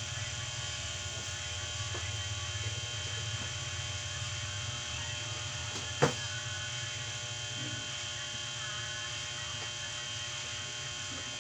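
A steady electrical buzz made of many fixed tones, with a single sharp click about six seconds in.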